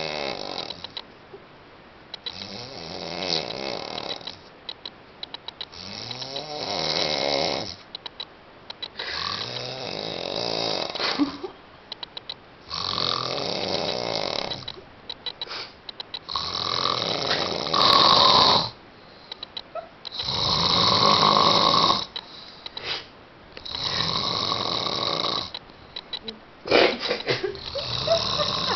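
A sleeping person snoring, about eight long snores, one every three to four seconds. Each snore lasts about two seconds, and its pitch slides up and down within it.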